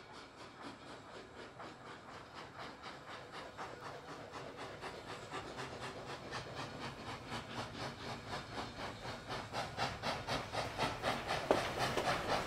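Steam locomotive chuffing in a steady rhythm of about four beats a second, growing steadily louder.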